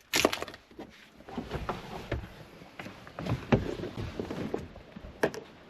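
A car door shutting with a sharp thump at the start, followed by a run of faint, irregular knocks and rustles such as footsteps on the ground.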